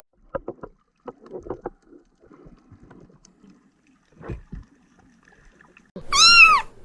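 Faint scattered clicks and a soft knock, then near the end a single loud cat meow that rises and falls in pitch.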